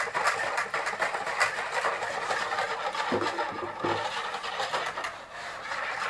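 Metal wire whisk beating a thin milk-and-egg eggnog mixture in a bowl: a fast, steady clatter of the wires against the bowl and through the liquid, whipping air into the mixture.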